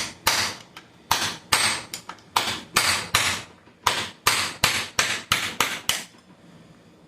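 Hammer blows on metal gearbox parts during teardown of a manual transmission: about fifteen quick, sharp strikes, two or three a second, each ringing briefly, stopping about six seconds in.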